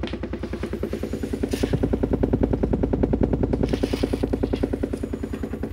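Lanzar 1600-watt dual-voice-coil subwoofer playing a 10 Hz test tone, heard as a rapid flutter of about ten pulses a second from the cone pumping air. It grows louder from about a second and a half in, then eases off near the end.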